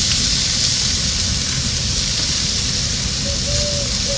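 Hot dogs sizzling on the hot grates of a smoker, a steady hiss with a low rumble underneath.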